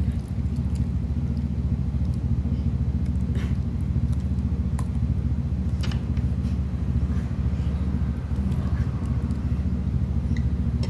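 A steady low hum throughout, with a few light clicks of a metal spoon against a ceramic dish as a child eats.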